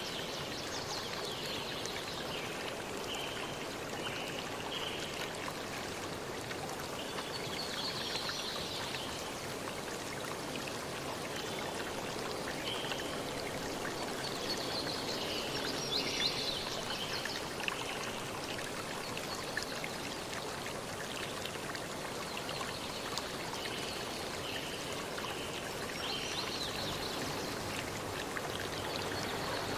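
Steady rushing of running water like a stream, with short high chirps recurring throughout.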